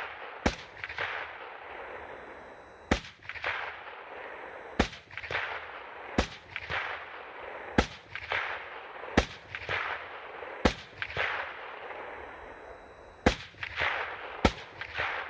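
Ruger SFAR 16-inch .308 semi-automatic rifle firing nine shots at an unhurried, uneven pace, roughly one every one to two and a half seconds. Each crack trails off in an echo.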